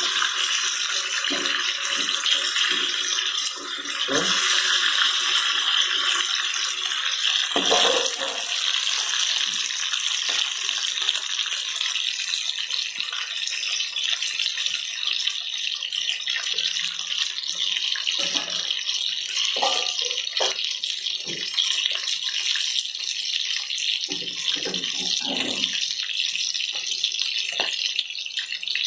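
Chicken drumsticks deep-frying in hot oil in a kadai: a steady sizzle, with a few scrapes and knocks of a metal spatula against the pan.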